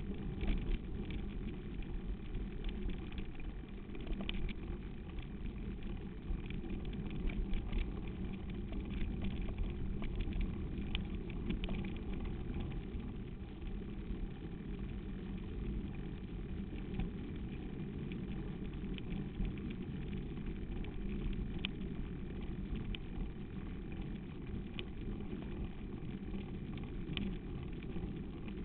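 Mountain bike riding over a packed sandy dirt track: a steady low rumble of tyres and wind buffeting the microphone, with frequent short rattling clicks as the bike and camera mount jolt over the rough ground.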